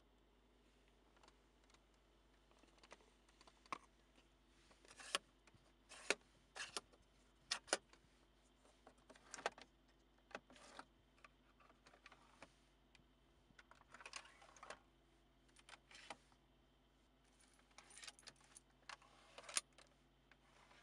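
Sharp plastic clicks and short sliding scrapes of a 2003 BMW 745Li's centre-console cupholders, ashtray lid and storage drawer being opened and closed by hand, coming irregularly in small clusters.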